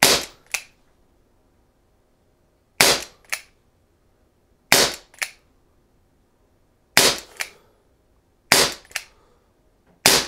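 Webley MKVI replica CO2 pellet revolver fired six times in single action, a sharp pop roughly every two seconds. Each shot is followed about half a second later by a fainter click.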